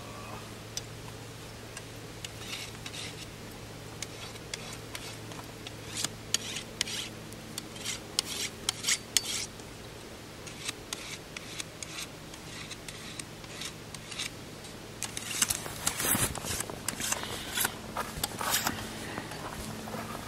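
Intermittent scraping, rasping and clicking of things being handled, over a steady low hum; the scrapes come in clusters about six seconds in and again for the last few seconds.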